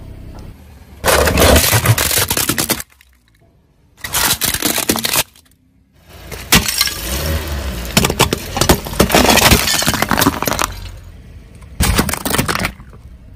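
A car tyre rolling over and crushing objects: crunching, cracking and breaking in four separate bursts with short silent gaps between them. The longest burst, in the middle, is a ceramic figurine and terracotta pot cracking and breaking under the wheel.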